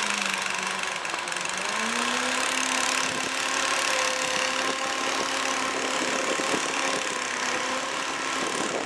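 Diesel engine of the site machinery running. Its pitch rises once about one and a half seconds in, then holds steady over a constant hiss.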